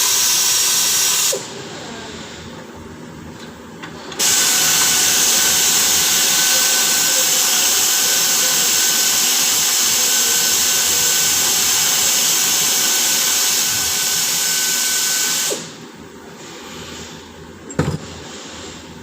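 Power ratchet running in two bursts, a short one at the start and a long one of about eleven seconds, with a steady whine over a hiss, working the fasteners on a Land Cruiser's rear axle. A single sharp knock near the end.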